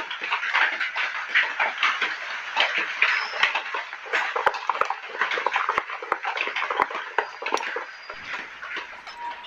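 Idli batter being mixed in a bowl, with quick, irregular wet strokes and small clicks against the bowl.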